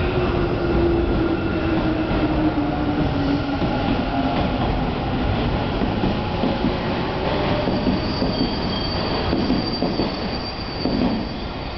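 Electric commuter train running past the platform: a steady rumble with a low motor tone that slowly falls in pitch over the first few seconds, then a thin high wheel squeal that begins about two thirds in and holds to the end.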